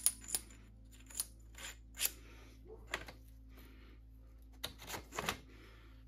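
Metal bike parts clicking and clinking as the stem and headset spacers are slid onto an air fork's steerer tube and seated. The knocks come singly and irregularly, about one a second, bunching together a little before the end.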